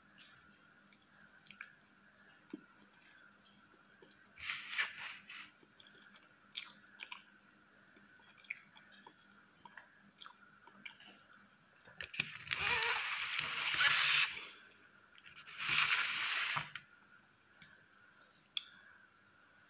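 Close-miked mouth sounds of someone eating soft cream cake, with soft chewing and smacking and small fork clicks. In the second half come two longer, louder rustling noises, one about two seconds long and one about a second long.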